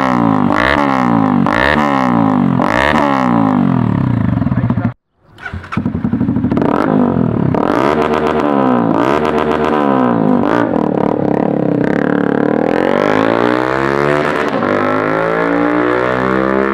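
Honda CB Twister 250F's single-cylinder engine through an aftermarket sport exhaust, revved in quick blips about once a second. The sound cuts out briefly about five seconds in, then the revving resumes and turns into one long rise in pitch as the bike accelerates.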